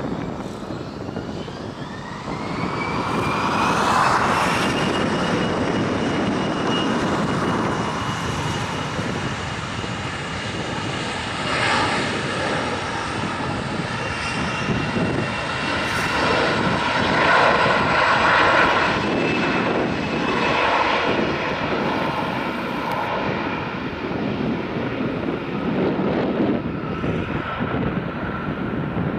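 A Bombardier CRJ-700's twin rear-mounted GE CF34-8C turbofans spool up to takeoff thrust, a whine rising in pitch over the first few seconds and then holding steady over a loud rushing roar as the jet accelerates down the runway on its takeoff roll.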